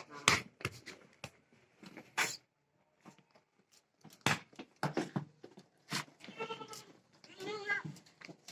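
Goats, likely of the Sirohi breed, bleating twice with a wavering pitch in the second half, amid scattered sharp knocks and clatter.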